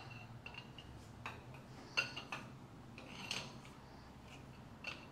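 Scattered light metallic clinks and taps of steel tools and bolt-on alignment bars being handled at the joint of a machine's bed sections, with a sharper clink about two seconds in and a few more around three seconds, over a low steady hum.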